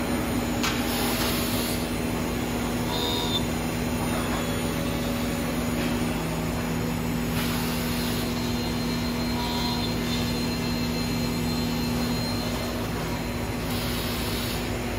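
A 1998 Anderson Stratos WFD CNC router, with its 10 horsepower spindle, running a job on a solid-wood door panel: a steady machine hum with two low tones and the whir of cutting. Short hissing swells come about every six seconds.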